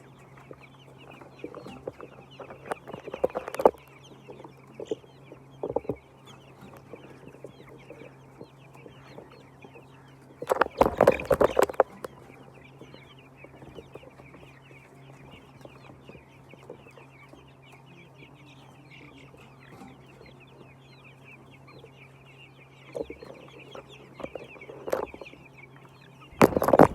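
A flock of chickens clucking and chattering continuously, many birds calling at once. About ten seconds in comes a louder burst of commotion lasting a second or two, and another near the end.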